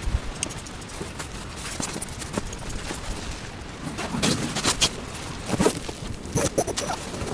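Irregular rustling and crunching with scattered knocks, growing denser and louder about four seconds in, over a steady hiss.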